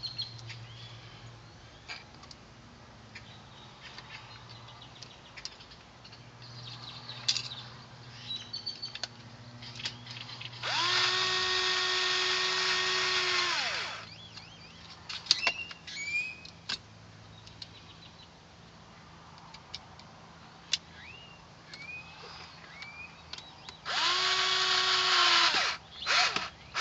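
Power drill driving screws: two runs, the first about three seconds and the second about two, each spinning up, holding a steady speed and winding down, with small handling clicks between them. It is fastening a speaker to its mounting bracket.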